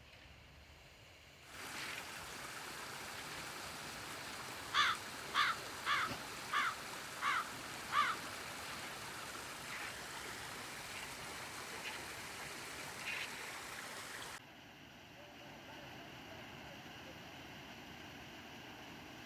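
Running water of a mountain stream, a steady rushing that starts about a second and a half in and cuts off suddenly around fourteen seconds, leaving a fainter hiss. A few seconds in, six short high chirps sound over it at an even pace, about two a second.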